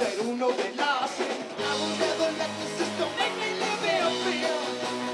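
Live rock band playing with acoustic and electric guitars, drums and singing voices. About a second and a half in, the low notes and the full band come in and keep going.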